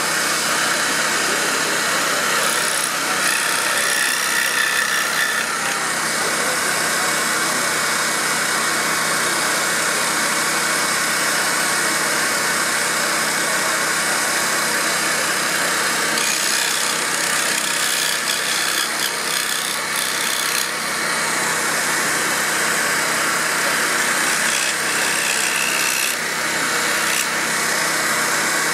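Pégas scroll saw running steadily without cutting, its blade stroking up and down, while the sawn wooden figure is handled and its waste pieces are broken and rubbed away, adding light wooden rubbing and crackling now and then.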